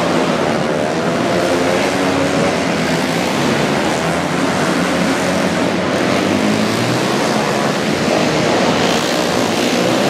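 Several flat-track racing motorcycles at full race pace, their overlapping engine notes rising and falling as the bikes power through the turn and down the straight.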